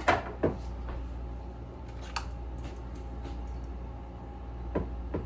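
A few sharp clicks and knocks of jalapeños and utensils being handled on the kitchen counter, the two loudest within the first half second and a few more later, over a steady low hum.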